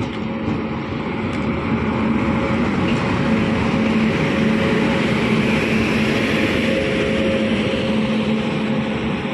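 WAP-7 electric locomotive running light past at close range: rumble of its wheels on the rails with a steady electric hum. It grows louder as it draws level about halfway through, then eases slightly as it moves away.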